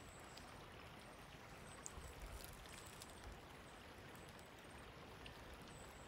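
Faint steady trickle of a shallow creek running low over rocks.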